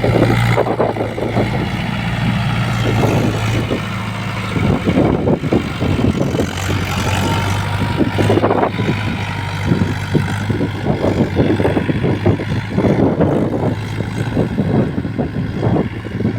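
Mahindra Yuvo 475 tractor's diesel engine running steadily, working the field.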